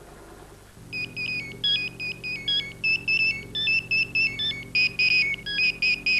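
Mobile phone ringing: a quick melody of short, high electronic beeps that starts about a second in, over a low steady hum.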